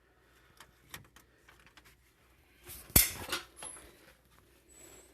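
Tools and metal parts being handled: a few faint clicks, then one sharp metallic knock about three seconds in, followed by a few smaller clinks.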